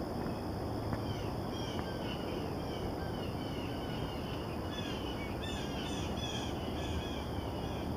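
Small birds chirping: many short high notes, coming thicker from about halfway through, over a steady low outdoor rumble.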